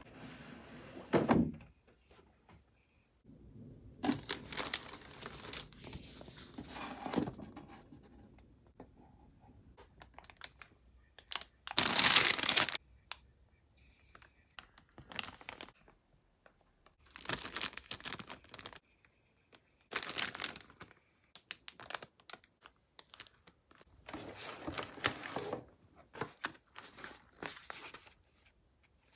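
Clear plastic bags around model-kit runners crinkling as they are handled, with the cardboard kit box being moved, in scattered rustling bursts with quiet gaps between them; the loudest, longest rustle comes about twelve seconds in.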